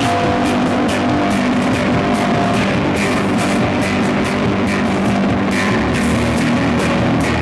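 Live noise rock band playing loud: distorted electric guitar, bass and drum kit, with steady regular drum and cymbal hits under held guitar notes. The bass drops to a lower note about six seconds in.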